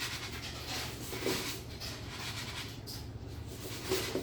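Loose bird seed rustling and scraping as a peanut-butter-coated cardboard toilet-paper roll is turned in it, with a few louder swells of rustling.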